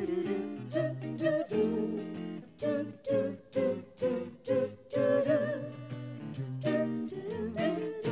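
Pop band music: guitar chords struck in a steady rhythm over a bass line, with a wavering melody on top. This is the instrumental lead-in to a love song, before the vocals begin.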